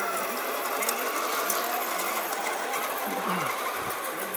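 1/10 scale RC Land Rover Defender crawler driving through sand: the small electric motor and drivetrain gears whine, rising and falling in pitch, with scattered light ticks.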